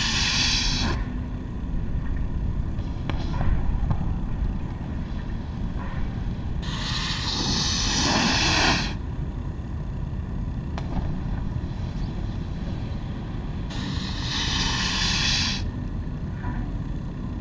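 Snowboards sliding down a plastic brush-mat ramp: three hissing scrapes of about two seconds each, at the start, about seven seconds in and about fourteen seconds in, over a steady low rumble.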